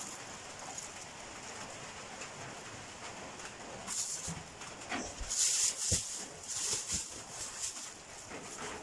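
Thin plastic bag rustling and crinkling in bursts as a hand works in it, with a few soft knocks of rambutan fruit being handled.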